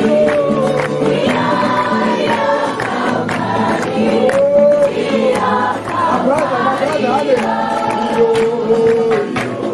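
A group of young people singing together in chorus, several voice parts at once, over a steady percussive beat.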